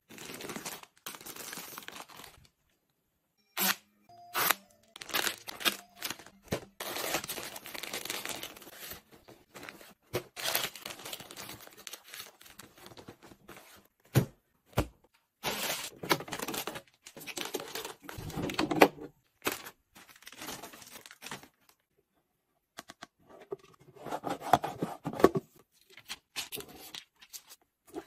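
Packaging torn open and crinkled by hand, in irregular bursts mixed with short knocks and clicks, with brief silent gaps.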